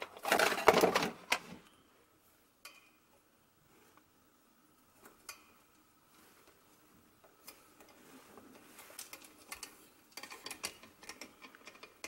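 A loud clatter of small hard objects for about the first second and a half, then isolated light clicks, and from about halfway on faint scattered clicking and rustling as plastic cable clips and a mic cable are handled and pressed onto a lamp arm.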